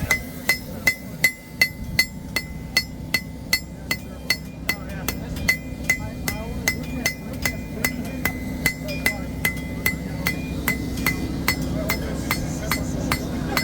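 Hand hammer striking hot knife-blade steel on an anvil in a steady rhythm of about three blows a second, each blow ringing. The hammering smooths and straightens the forged blade. A steady low hum runs underneath.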